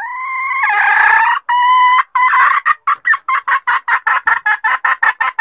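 Junglefowl hen calling: a drawn-out note that rises and is held, then breaks into a fast run of short clucks that quickens toward the end and stops abruptly. It is a hen's call of the kind that draws in males.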